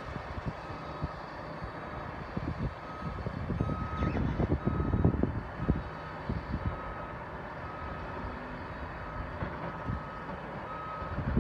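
A back-up alarm beeping about once every 0.8 seconds over a steady low rumble of construction machinery. Bursts of crunching and clatter come between about two and six seconds in, as the long-reach demolition excavator tears at the station's roof.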